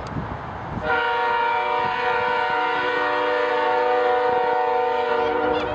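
Canadian Pacific diesel locomotive's air horn sounding one long blast, several tones together as a steady chord. It starts about a second in and holds for nearly five seconds.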